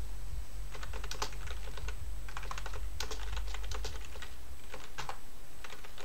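Typing on a computer keyboard in three short bursts of keystrokes with pauses between, as a terminal command is entered.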